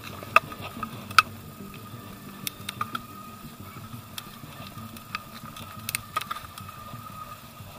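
Mountain bike rolling over a dirt forest trail: tyre rumble with sharp clicks and rattles as the bike jolts over bumps, the two loudest within the first second and a half. A faint steady whine runs underneath.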